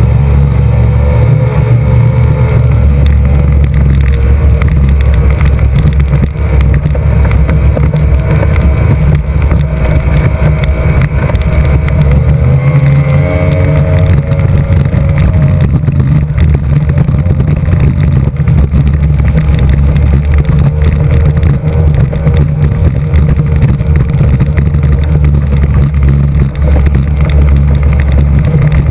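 Mercury 2.5-litre EFI V6 two-stroke outboard running hard on a race boat, heard close from onboard, with rushing water and wind. Its note rises briefly about twelve seconds in, then holds steady.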